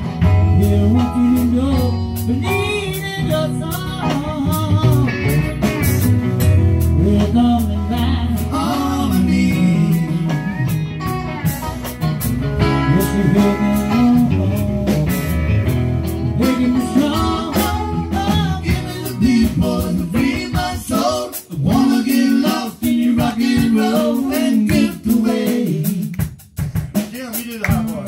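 Live band playing electric guitars, electric bass and drum kit. About two-thirds of the way through, sharp drum hits come to the fore.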